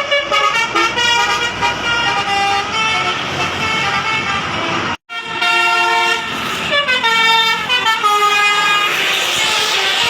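Basuri telolet bus horn playing a melody of quick stepped notes. It drops out suddenly about five seconds in, then another horn melody follows.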